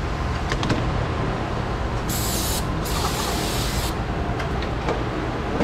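Aerosol brake cleaner sprayed onto a new brake rotor in two hissing bursts about two seconds in, a short one and then one about a second long, washing off the rotor's anti-rust oil.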